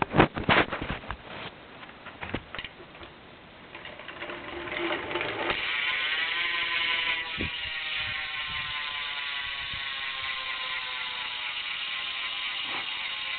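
Primo Mix cassette hub on a BMX rear wheel freewheeling after a spin, wicked loud: its pawls click so fast they run together into a buzz that slowly falls in pitch as the wheel slows. A few knocks and rattles of handling the bike come in the first seconds.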